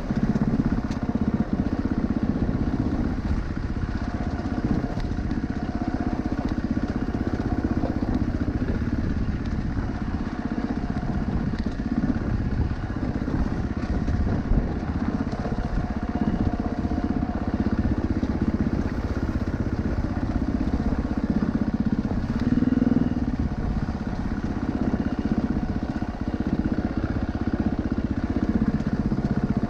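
Off-road vehicle engine running steadily and continuously as it drives a rough trail.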